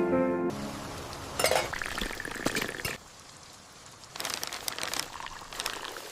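Glass cups and dishes clinking and clattering in two short runs, typical of tea being served at a tea stall.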